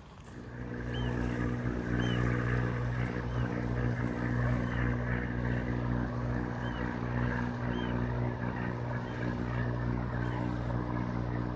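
Inboard engine of a motor cruiser passing close on the river: a steady low hum that comes up about half a second in and holds evenly.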